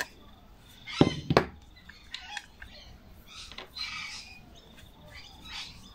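Two sharp clicks about a second in, a screwdriver prying at the plastic primer cap of a Victa two-stroke mower's carburetor. Faint bird calls in the background.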